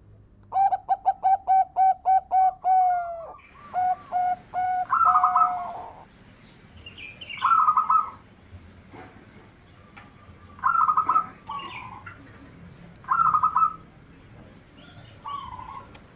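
Zebra dove (perkutut) cooing: a fast run of about ten short, evenly spaced coos, followed by several short rolling phrases a few seconds apart.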